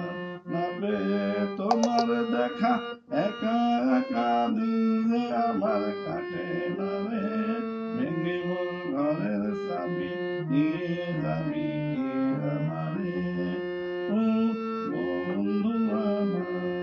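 Hand-pumped harmonium playing an instrumental melody over a held low note, its reeds sustaining each note as the tune moves.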